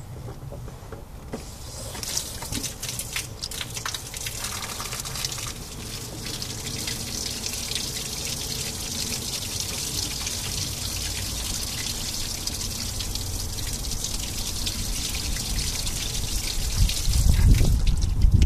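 Water rushing through the Dodge Dakota's heater core and out of the disconnected heater hose as the blocked core is flushed: a steady hiss of flowing water that starts about a second in, with a louder low rumble near the end.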